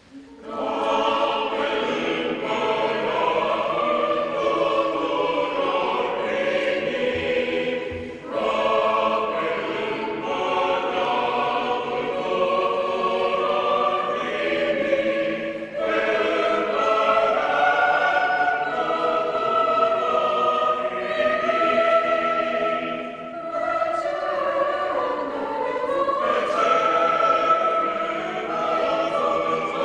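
Mixed choir of men's and women's voices singing a cappella under a conductor, coming in just at the start and going on in long sustained phrases broken by three brief breaths.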